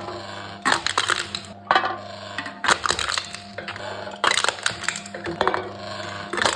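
Aluminium cans being crushed one after another by a can-crushing machine: a crackling crunch of folding metal about once a second, five or six times, over a steady low hum.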